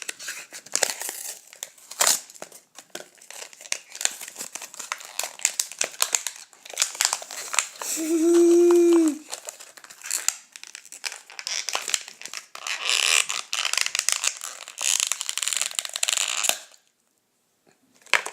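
A crinkly wrapper being torn open and crumpled by hand, in irregular crackling handfuls that stop abruptly near the end. About eight seconds in, a short hummed note from a voice rises above the crinkling.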